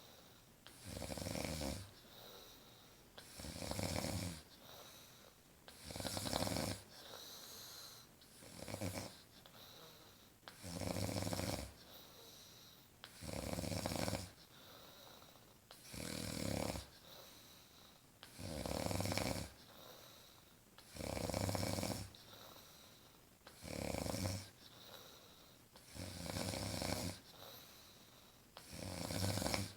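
A woman snoring in her sleep: a loud snore on each breath, about every two and a half seconds, with a quieter breath between.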